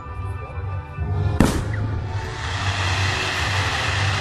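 Music with a heavy bass line plays over a fireworks display, and a single sharp firework bang comes about a second and a half in. A denser hiss builds up behind the music after the bang.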